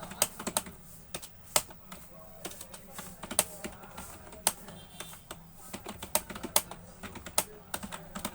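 Computer keyboard being typed on steadily: quick, irregular key clicks, several a second, some struck much harder than others.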